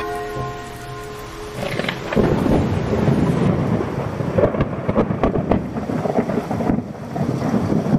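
A held music chord fades out over the first second or so. From about two seconds in, thunder rumbles and crackles over a steady hiss of rain.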